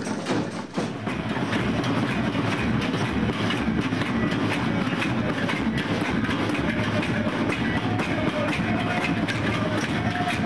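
Many people banging on metal cooking pots, pans and pan lids with wooden spoons, a dense, continuous clatter of strikes that starts about a second in.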